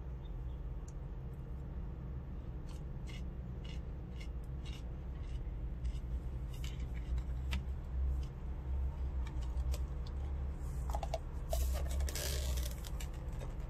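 Scattered sharp clicks, then plastic takeout container lids and a plastic bag crinkling and scraping about eleven seconds in, with a few brief squeaks, over a steady low hum.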